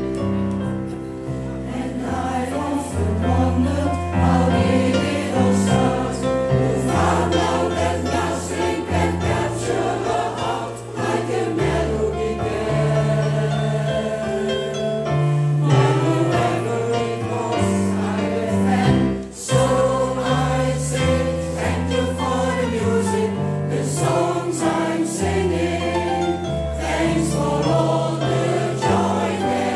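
Mixed choir of men's and women's voices singing a song in parts over long, held low notes, with a brief break about two-thirds of the way through.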